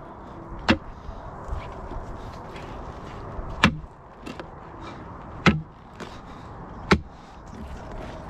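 Steel crowbar striking and levering against limestone rocks: four sharp knocks spread a second or two apart over a steady low background.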